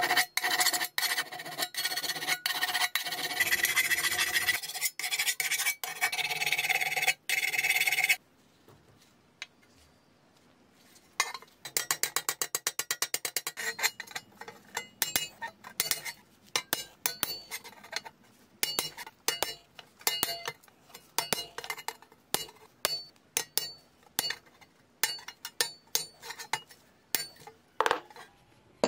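Hand rasping and scraping on a pressed-steel toy truck part: about eight seconds of continuous rough rasping, a brief pause, then a run of quick short strokes followed by scattered scratching clicks.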